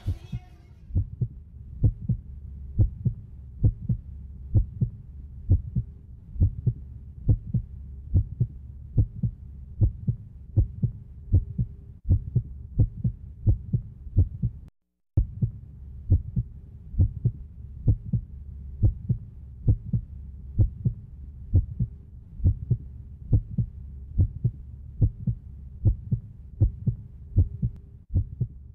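A steady, muffled low thumping beat, about two thumps a second, over a low hum. It drops out for a moment about halfway through.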